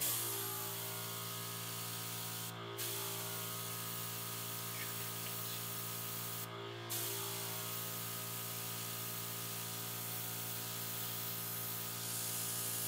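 Airbrush test-spraying paint: a steady hiss of air and paint in three long bursts, broken briefly about two and a half and six and a half seconds in, over a steady low hum.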